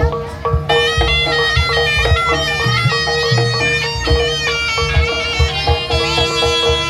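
Jaranan gamelan accompaniment: a reedy Javanese shawm (slompret) plays a winding melody over a steady held tone, with frequent kendang drum strokes underneath.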